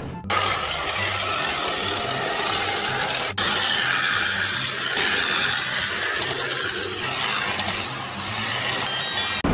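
Machinery running: a steady noisy rush with a faint low rhythmic pulse, cut off briefly about three seconds in.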